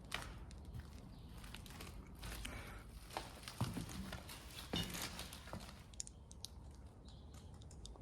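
Footsteps at an uneven walking pace, with scattered small crunches and taps.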